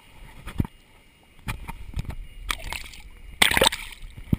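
Water sloshing and splashing close to a waterproof camera, with several knocks and one loud splash about three and a half seconds in.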